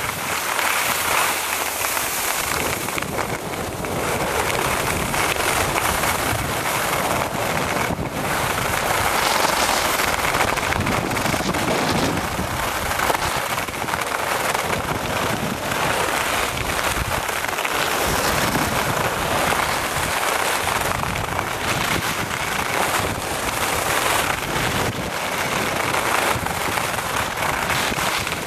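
Skis carving at speed over hard-packed piste snow: a steady, dense crackling hiss of edges scraping and chattering on the snow, with wind rushing over the microphone of the skier-carried camera.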